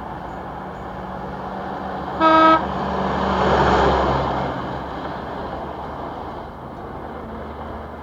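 Road vehicle sound effect: a steady traffic-like engine noise with one short horn toot about two seconds in, then a rise and fade as the vehicle passes by.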